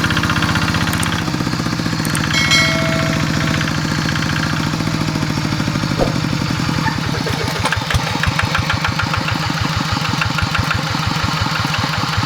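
Kubota single-cylinder diesel engine of a two-wheel hand tractor running steadily with a rapid, even chugging, working a flooded rice paddy with a harrow.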